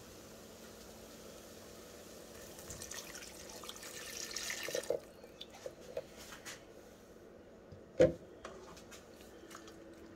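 Chicken stock poured into a hot skillet of onions and arrowroot-flour roux: a splashing hiss builds for about two seconds and stops suddenly. Then light clicks of a silicone spatula stirring the pan, with one sharp knock about eight seconds in.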